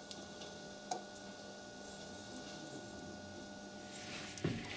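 Mostly quiet, with a faint steady hum, a single light metallic click about a second in, and faint scraping near the end, from pliers working a rivet out of the motor housing's number plate.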